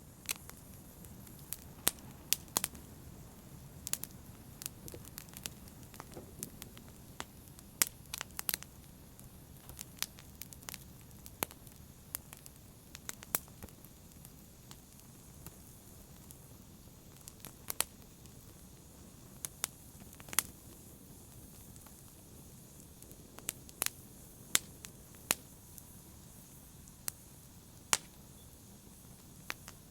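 Wood fire burning in a fireplace: sharp, irregular crackles and pops, about one a second, over a steady low hiss of the flames.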